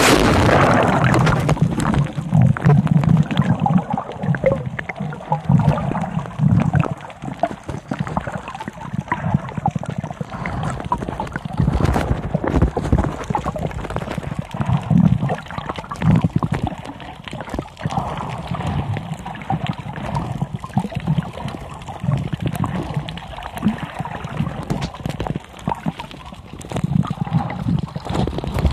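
Muffled water sloshing and gurgling around a camera held underwater, with irregular low pulsing rumbles. The sound jumps up sharply as the camera goes under at the start.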